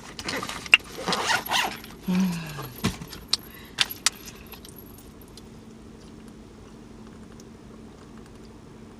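Rattling, crinkling and clicking of items being handled, with a short low falling vocal sound about two seconds in. The handling noises stop after about five seconds, leaving a faint steady hum.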